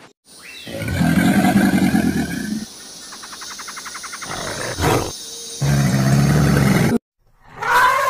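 Crocodile growls: several long, deep bouts, with a fast rattling stretch in the middle. The sound cuts off about seven seconds in, and an elephant trumpets briefly near the end.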